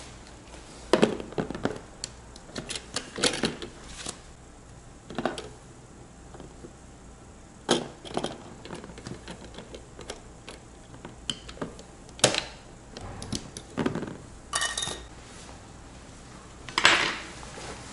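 Irregular clicks and knocks of PC hardware being handled and fitted onto a bare motherboard, parts and cable plugs clicking into place. The loudest knock comes near the end.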